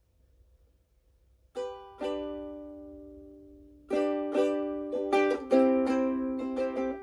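Ukulele chords being strummed. A first strum comes about a second and a half in, and a second follows half a second later and is left to ring for about two seconds. Then a quicker rhythmic strumming pattern starts, with a chord change about halfway through.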